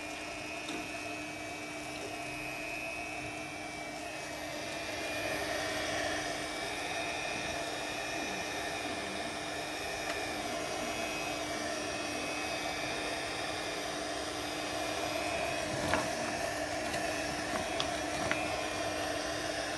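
Electric heat gun running steadily, its fan blowing hot air with a constant hum to soften clear film being stretched over a motorcycle fairing. A few faint clicks near the end.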